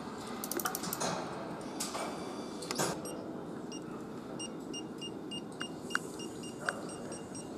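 Engine-assembly workstation noise: sharp metal clicks and knocks of tools against a V8 engine block over a steady factory hum. About three seconds in, a run of short electronic beeps starts, a few each second.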